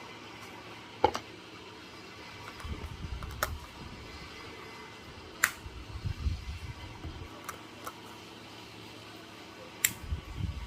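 Four sharp clicks spaced a few seconds apart, with low bumping and rubbing handling noise between them, as bottles and cups are handled while making a cold brew mocha.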